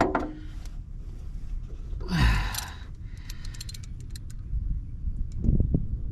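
A man's breathy sigh with a falling pitch about two seconds in, as he strains at work on the engine, followed by a few light clicks and some low thumps of handling.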